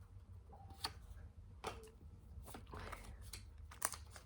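Trading cards being handled and flipped through by hand: a few soft, scattered clicks and taps of card stock.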